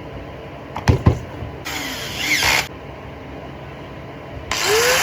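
Polymak electric grinder being test-run after a repair to its power wire. There are two sharp clicks about a second in, then a short run of about a second. Near the end the motor starts again and its whine rises as it spins up.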